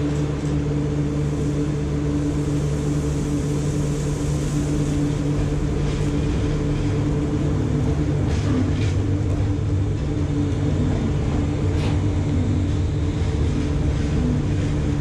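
SNCF CC 6558, a CC 6500-class electric locomotive, pulling out with its coaches and passing close by: a steady hum over a rumble, with a few sharp clicks from the wheels on the track.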